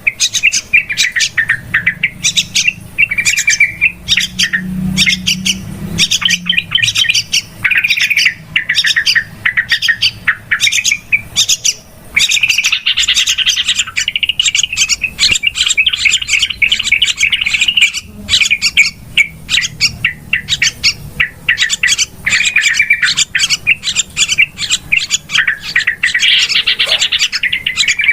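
Yellow-vented bulbuls (trucukan) chattering noisily in rapid, dense runs of calls with hardly a pause: the agitated call used as a lure to draw in wild bulbuls.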